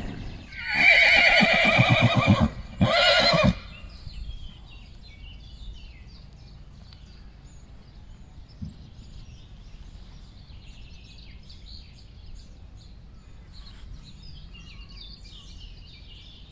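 A horse whinnying: one loud neigh in two parts with a short break, lasting about three and a half seconds, followed by a quiet background with faint high chirps.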